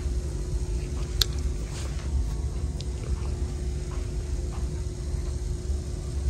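Steady low rumble of room noise with a faint constant hum, broken by one sharp click about a second in and a few faint taps.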